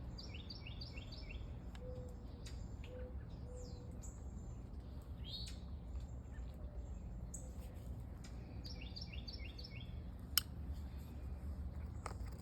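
A songbird calling: a quick run of about five short, falling chirps near the start and again about nine seconds in, with single chirps between, over a steady low background rumble. One sharp click sounds about ten seconds in.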